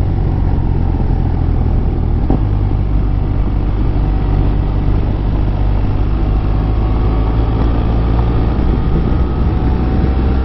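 BMW R1200RS boxer-twin motorcycle engine running steadily at road speed, with wind and road noise. Its pitch rises slowly in the second half as the bike speeds up.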